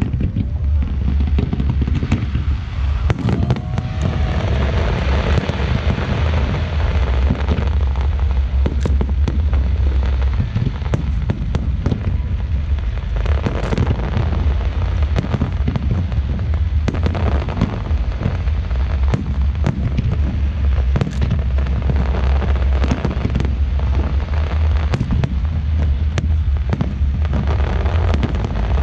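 Fireworks display: shells launching and bursting in quick succession, dozens of overlapping booms and pops with crackle, with no break.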